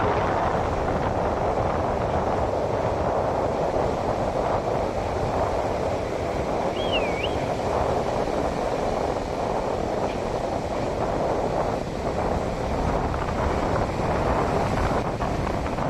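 Ocean surf washing in steadily, with wind buffeting the microphone. A short, wavering high whistle-like call sounds once, about halfway through.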